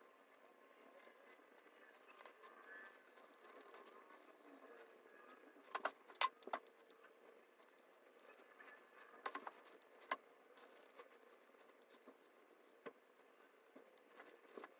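Mostly quiet, with a few sharp taps of a paintbrush dabbing paint onto a canvas: three close together about six seconds in, a few more around nine to ten seconds, and a single one near thirteen seconds.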